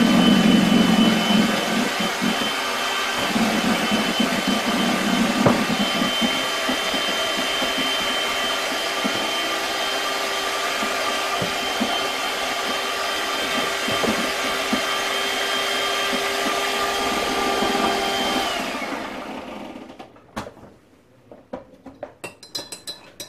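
A kitchen appliance's electric motor running steadily with a whine, then switched off about eighteen seconds in, its whine falling as it spins down. A few light clicks and knocks follow near the end.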